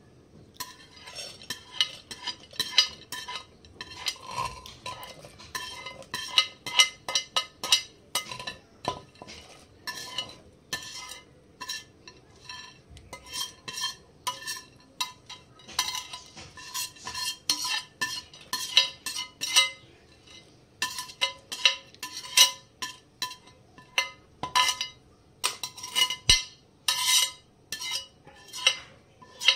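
A spoon stirring sheer khurma, milk and vermicelli, in a cooking pot, clinking and scraping against the pot in quick, irregular strokes with a few short pauses.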